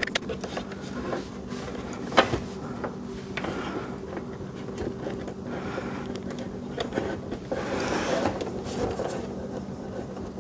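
Small clicks and rustles of welding wire and the MIG welder's wire-feed drive roll and tension arm being handled as the wire is threaded into the guide, with a sharper click about two seconds in. A steady low hum runs underneath.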